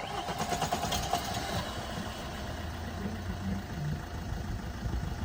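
Car engine running at idle, steady and low, after a sharp knock at the very start.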